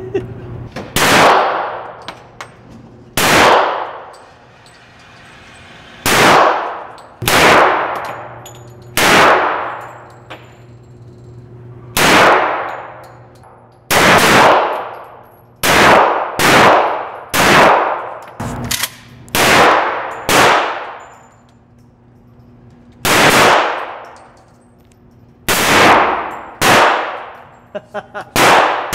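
Pistol shots fired one after another in an indoor shooting range: about eighteen irregularly spaced shots, sometimes two or three in quick succession, each with a long echoing ring-off.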